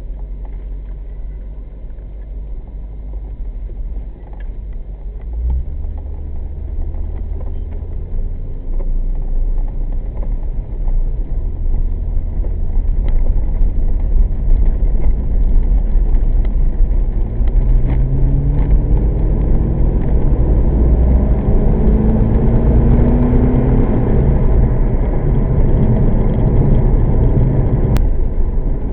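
1998 Corvette C5's LS1 V8 driving along with road rumble, getting louder as the car picks up speed; about two-thirds of the way in the engine pitch climbs twice as it accelerates.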